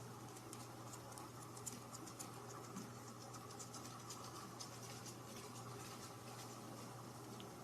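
Faint, irregular scratching with light ticks and clicks, several a second, over a steady low hum.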